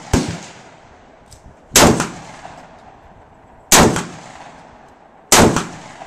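Three shots from an FN SLP gas-operated semi-automatic 12-gauge shotgun, fired at a steady pace roughly two seconds apart. Each is a sharp, loud blast followed by a fading echo.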